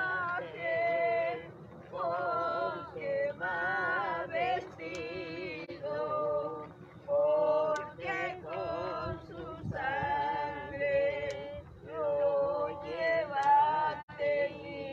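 A group of men and women singing a processional hymn together without instruments, in short phrases with wavering voices.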